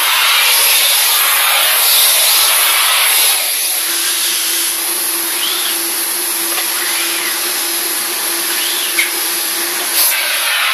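Steam cleaner hissing a steady jet of steam through its wand's floor nozzle as the nozzle is worked over sofa cushions. A faint steady hum joins about four seconds in.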